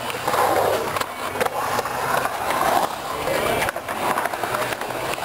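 Skateboard wheels rolling on the concrete bowl, a rushing noise that swells and fades as the rider carves through the transitions, with a few sharp clicks.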